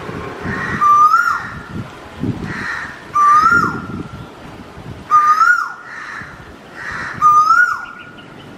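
A whistled call, a held note that rises and then drops away, repeated about every two seconds, five times over, each call much alike.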